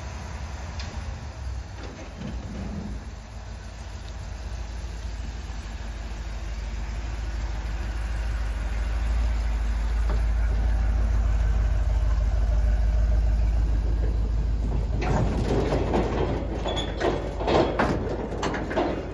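Ford F350 Super Duty's 7.3-litre gas V8 running low as the truck pulls slowly past, the rumble growing louder as it nears. In the last few seconds, the empty flatbed trailer behind it clanks and rattles over the gravel, loudest of all.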